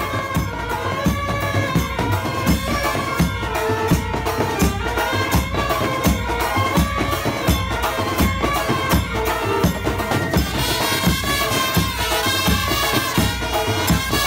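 Background music with a steady drum beat under a melody.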